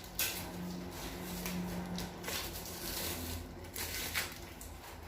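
Irregular rustling and scraping handling noises, with a steady low hum beneath.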